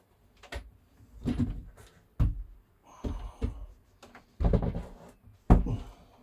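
A series of knocks and thumps with rustling between them, the loudest and sharpest thump near the end.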